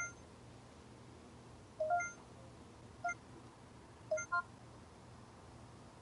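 Short electronic button beeps from a camcorder's menu controls, about five at irregular intervals, two of them close together about four seconds in, over a faint steady hum.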